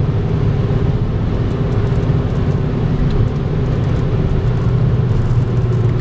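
Road and engine noise inside a car's cabin while cruising at highway speed: a steady low drone.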